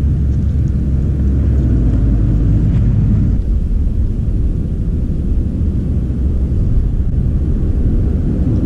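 A steady low rumble with no distinct events, its level unchanging throughout.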